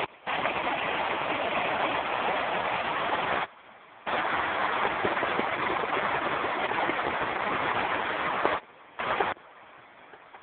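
Artificial cascade's water falling and splashing: a steady rushing noise that breaks off abruptly a little past three seconds and again near the end.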